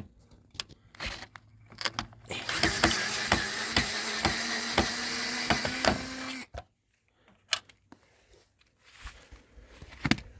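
Power driver running for about four seconds, backing out a tight screw that holds a microwave oven's transformer. It hums steadily with a regular clicking and stops suddenly. Short clicks and knocks of handling come before and after.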